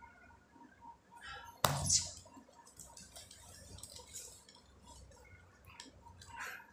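Rustling and light clinks as a cat grapples and paws at a person's hand and arm, with one sharp knock a little under two seconds in.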